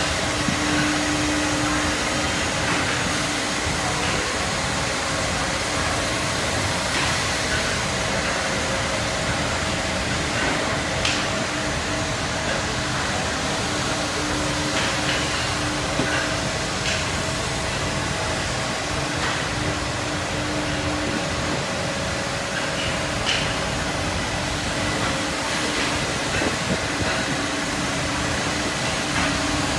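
Holztek R1V9F CNC nesting router cutting a wood panel: the spindle and dust extraction run as a steady mechanical noise with a low hum, and a few faint ticks.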